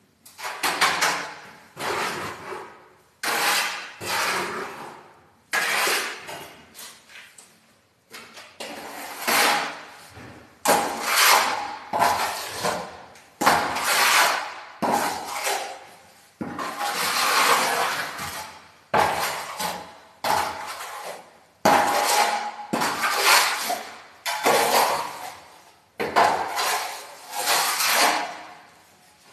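Steel plastering trowel scraping fine finishing plaster across a wall: a long scraping stroke every second or two, each starting sharply and fading away.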